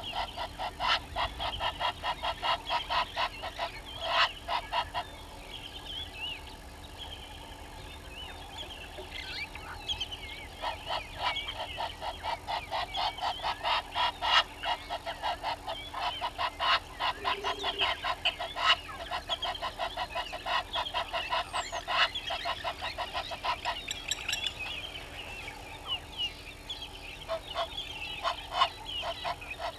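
Helmeted guineafowl calling in a harsh, rapid cackling chorus, about four or five notes a second, in long runs with a lull partway through. Thinner chirps from smaller birds sit behind it.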